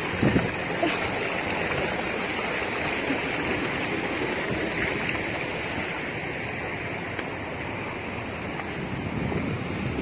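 Steady rushing of a waterfall and river water pouring over rocks, with a brief thump on the microphone near the start.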